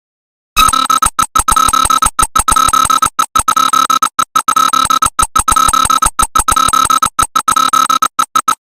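Electronic emergency-alert alarm tone: one high, shrill pitch chopped on and off in rapid, irregular stutters. It starts about half a second in and cuts off just before the end.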